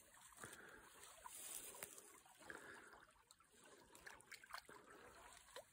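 Faint trickling of river current along the bank, with a few soft clicks.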